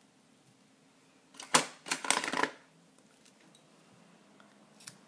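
Small handling sounds at a craft table: one sharp click about a second and a half in, then about half a second of rustling and clicking as scissors are picked up and brought to a white ribbon bow. A small tick follows near the end.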